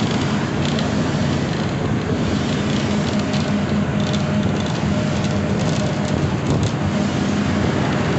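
City bus running, with a steady engine drone and road noise heard from inside the cabin.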